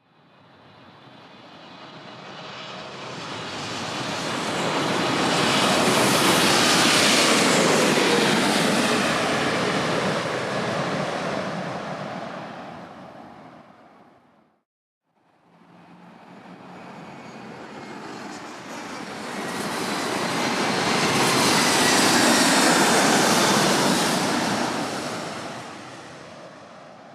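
Jumbo jet airliner flying overhead, twice: each pass swells up from nothing to a loud peak and fades away over about fourteen seconds, its whine dropping in pitch as it goes past, with a brief silence between the two passes.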